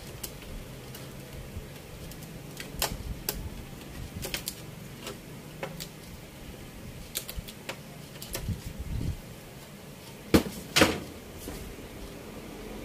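Scattered small clicks and knocks of objects being handled on a workbench, with two louder knocks close together about ten seconds in, over a faint steady low hum.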